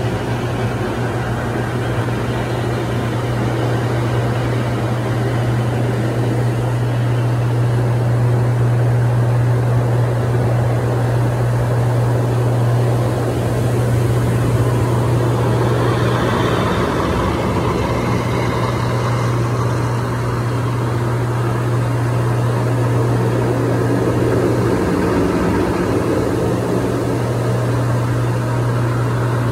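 Hydromassage bed running: its pump and water jets make a steady low hum with a rushing wash over it that swells and eases slightly.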